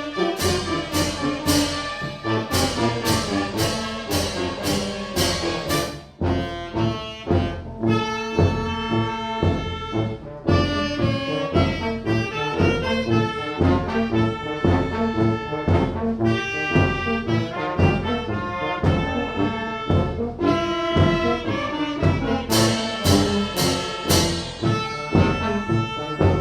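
Brass band of trumpets and trombones playing a tune over a steady beat, with regular cymbal strikes in several stretches. It is an old battery-powered tape recording, so pitch and speed may waver.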